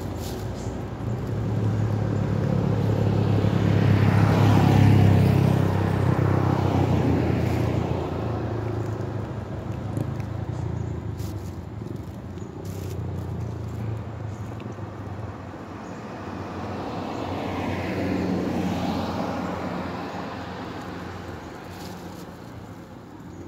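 Road traffic: motor vehicles passing close by over a steady low engine hum. One pass swells loudest about five seconds in and fades, and a second, weaker pass comes later.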